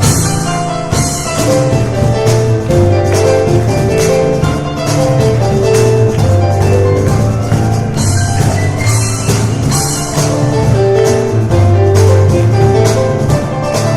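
Piano and cajón duo playing an up-tempo instrumental: quick runs of piano notes over a steady low cajón beat. Bright crashing accents come twice near the start and three times, about a second apart, later on.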